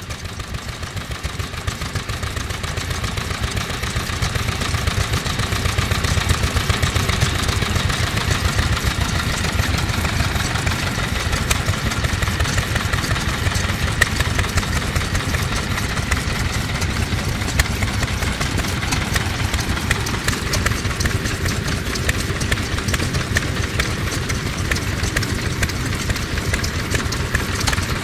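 YOSHIDA Type D 2.5 hp single-cylinder stationary farm engine running steadily, belt-driving a straw rope making machine. The run is an even, rapid mechanical beat, swelling over the first few seconds and then holding level.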